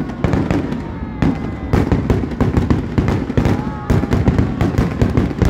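Aerial fireworks shells bursting in a rapid, continuous run of bangs and crackles.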